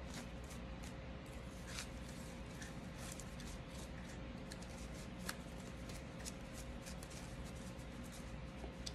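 Microfiber cloth rubbing and wiping over the polymer frame of a field-stripped Smith & Wesson M&P Shield Plus pistol: light scratchy rustles with scattered small clicks, the sharpest about five seconds in, over a faint steady hum.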